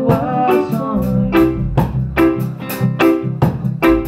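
Live band music: held keyboard chords from a Roland JV-90, electric guitar and drums keeping a steady beat, with a last sung word about a second in before the band plays on without vocals.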